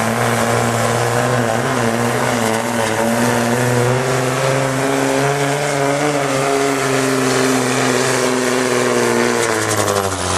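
Cummins diesel engine of a Dodge Ram pickup running hard under load, dragging a weighted pulling sled down the track. The engine note holds steady with slight wavering, then drops sharply in pitch near the end.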